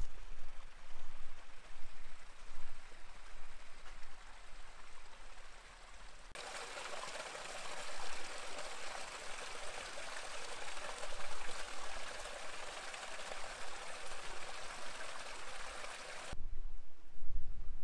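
A small stream trickling and splashing over granite boulders. It grows suddenly louder and closer about six seconds in and falls back about sixteen seconds in, with a low rumble outside that stretch.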